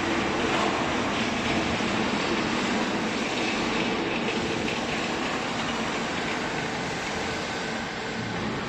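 Hydraulic wiping-rag baler running: a steady mechanical drone from its pump and motor, easing off slightly near the end.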